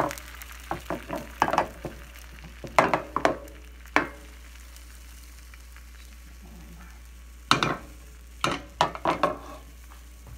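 Beaten eggs frying in an oiled pan with a steady low sizzle, broken by clusters of short scrapes and taps of a utensil against the pan: several in the first four seconds, then a pause, then more near the end.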